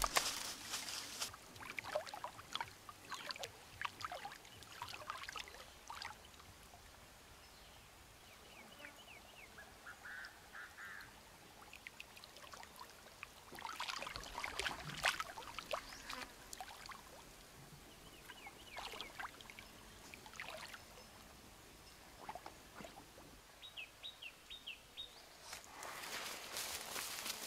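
Quiet outdoor ambience: scattered rustles in dry leaf litter at first, a few faint high bird chirps, and water splashing about halfway through as a large fish thrashes in shallow muddy water, with rustling again near the end.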